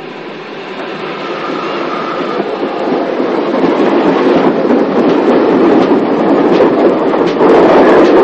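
Steam locomotives running light along the track: a clattering rumble of wheels and motion on the rails. It grows louder over the first few seconds as they approach and stays loud to the end.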